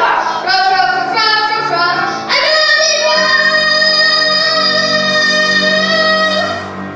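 A child singing a song with instrumental backing, the voice moving through short notes and then, a little over two seconds in, holding one long high note for about four seconds to close the phrase.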